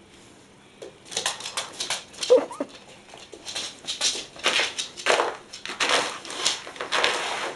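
A small plastic treat bag crinkling and rustling in quick irregular bursts as a Chinese shar pei noses and bites at it. A short squeaky sound comes about two seconds in and is the loudest moment.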